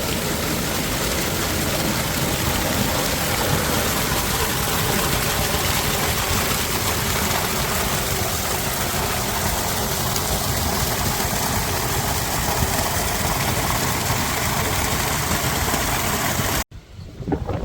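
Steady engine-like rumble mixed with loud rushing noise, cutting off abruptly near the end.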